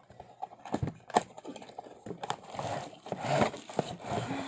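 Cardboard box and plastic wrap being handled as a tripod stand is pulled out of its packaging: a few sharp knocks in the first couple of seconds, then a stretch of rustling and scraping.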